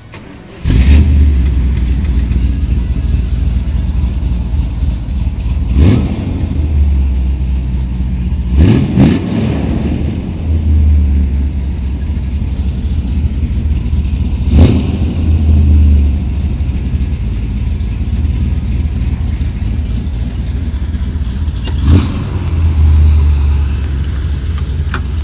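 1979 Chevrolet Corvette's L82 350 V8 with Hooker headers, running with a deep exhaust rumble and revved several times.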